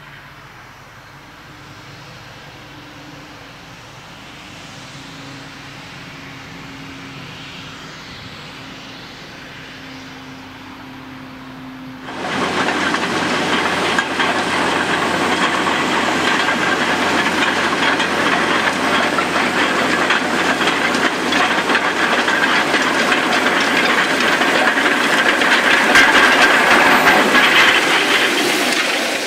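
Farm tractor working maize stubble with a front-mounted Güttler Matador 610 roller and a rear tine cultivator. First comes a steady, fairly distant engine hum. About twelve seconds in it switches suddenly to the loud, close noise of the tractor and implements passing, a steady rush with fine rattling from the tines and roller working the soil.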